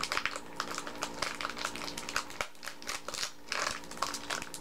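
Snack packaging crinkling and crackling as it is handled and opened, with many short irregular clicks.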